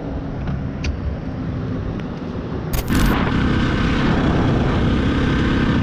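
Motorcycle engine running under wind rush. It changes abruptly and gets louder about three seconds in.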